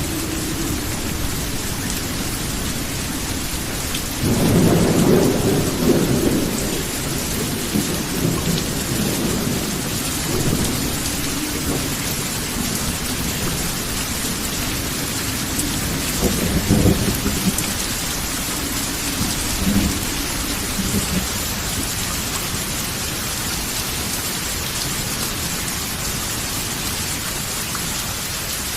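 Steady rain falling through a thunderstorm, with low rolling thunder: a long rumble about four seconds in, the loudest moment, and shorter rumbles past the middle.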